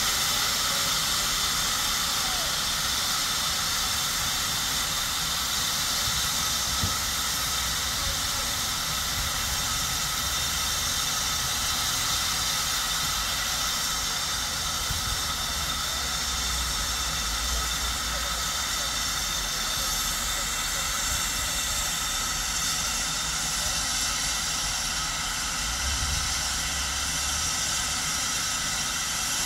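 Steam locomotives standing with steam escaping: a steady, continuous hiss, with a low rumble rising in places about halfway through and again near the end.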